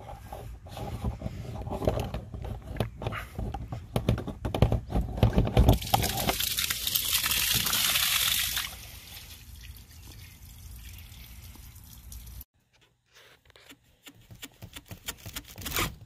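Water sputtering and gurgling out of a clogged PVC AC condensate drain line as the slime clog clears, then a few seconds of steady gushing and splashing onto the ground. The flow eases off after about nine seconds, and scattered faint clicks follow near the end.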